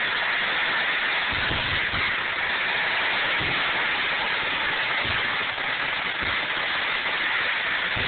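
Aerial fireworks display: a steady, loud crackling hiss like rain, with several dull low thumps of shells bursting spread through it.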